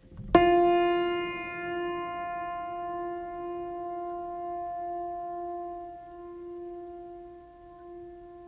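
A single struck note, like a piano or chime, sounds suddenly just after the start and then rings on, fading slowly.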